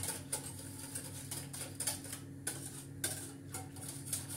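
Metal wire whisk clicking against the sides and bottom of a stainless steel pot while stirring cocoa pudding on the stove: a quick, irregular run of small metallic ticks over a steady low hum.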